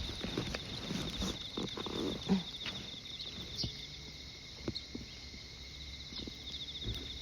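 Insects trilling steadily, a fast pulsing cricket-like chirr with a fainter steady whine beneath it, alongside soft footsteps and light rustling of a walk, most of them in the first few seconds.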